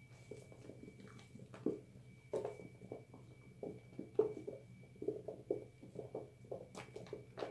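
Wet squishing of soapy hands rubbing a bar of recycled soap into thick lather, in irregular quick strokes.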